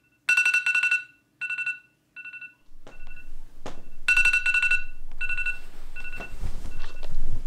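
Electronic alarm beeping in short groups of rapid, same-pitched beeps, repeating about once a second. From about three seconds in, a duvet rustles as it is handled, with a soft knock near four seconds.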